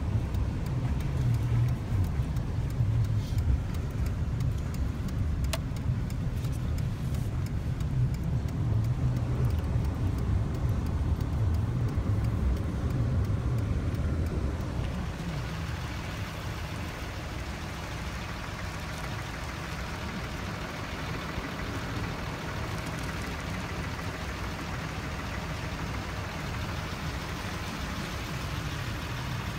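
Vehicle cabin noise while driving: a low engine and road rumble. About halfway through, the rumble drops and a steadier hiss takes over.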